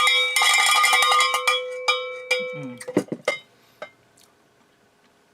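Cowbell struck rapidly over and over, ringing, then slowing to a few last strikes and stopping about two and a half seconds in. It is played as a rating: a lot of cowbell for the jellies.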